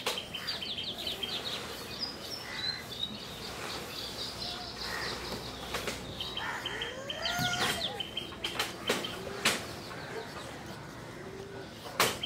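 Small birds chirping in quick runs of high notes, with a few short, sharp scrapes from a knife peeling the skin off a bottle gourd.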